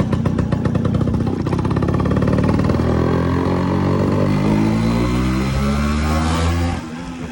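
Yamaha RX 100's two-stroke single-cylinder engine running with a quick, even pulse, then revving up with the pitch rising steadily for about four seconds, before the throttle is shut and the sound drops off sharply near the end.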